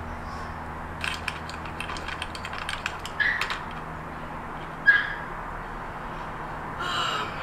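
Laptop keys tapped in a quick run of clicks, then two louder single clicks, over a low steady hum.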